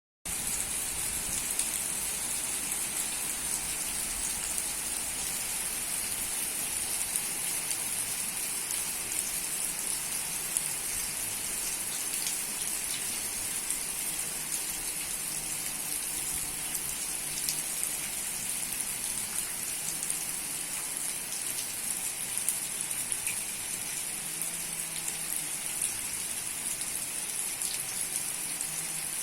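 Steady rain falling, with a constant hiss and scattered patter of drops.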